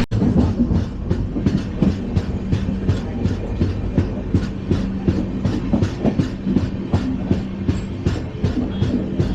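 LHB passenger coach running at speed: wheels on the rails give a continuous rumble with a steady hum and a rapid, regular clatter of clicks.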